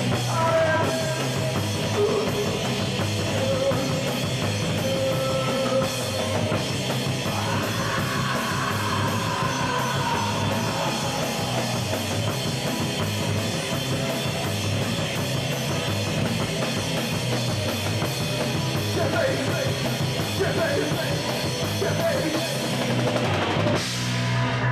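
A live rock band plays loud, heavy punk/metal with electric guitar, bass guitar and drum kit. About a second before the end the music stops, leaving a steady low hum.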